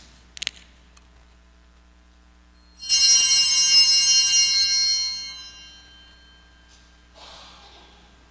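A small altar bell is rung about three seconds in, giving a bright, high ringing that fades away over a couple of seconds. A few light clinks come near the start.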